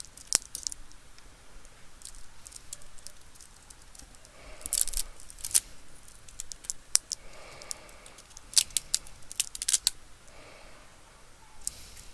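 Light, irregular clicks and short scrapes of small tools and parts being handled on an opened laptop under repair, with two bunches of quicker clicking partway through.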